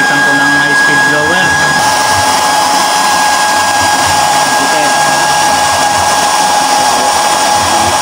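Forced-air waste-oil burner running, its electric blower on high speed giving a loud, steady rushing hiss with a steady whine over the flame.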